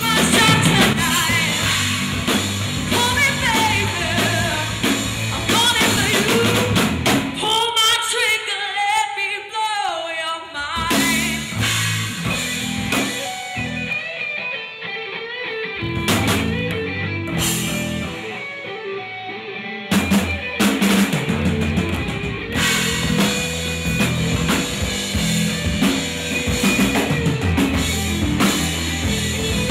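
Live rock cover band playing: a woman singing lead over a drum kit and electric bass. The music changes abruptly a few times, as from one song to the next, and near the first third it drops to the voice with little beneath it before the band comes back in.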